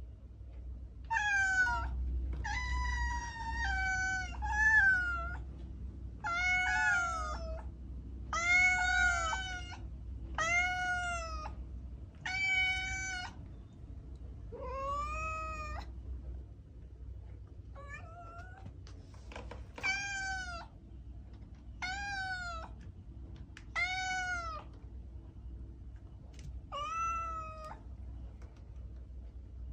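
Domestic cat meowing over and over, about a dozen separate meows roughly every two seconds, each rising then falling in pitch, with a short lull in the middle.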